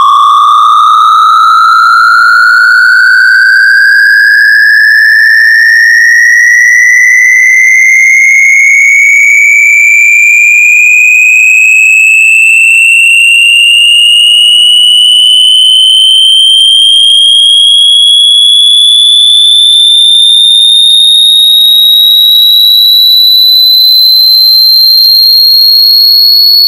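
A loud, harsh electronic test tone sweeping slowly and steadily upward in pitch, from a high whine to a piercing squeal. Its climb gradually slows, and the level stays constant throughout.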